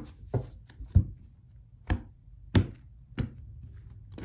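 Tarot cards knocked and laid down on a table: about six sharp, separate taps at irregular intervals.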